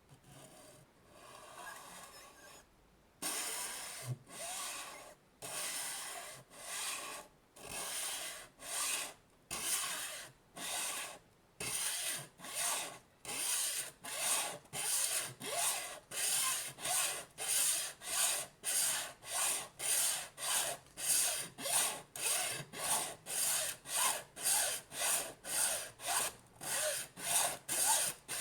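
A saw cutting by hand through the plastic casing of a Nintendo Switch AC adapter: back-and-forth rasping strokes, slow at first and speeding up to about two a second.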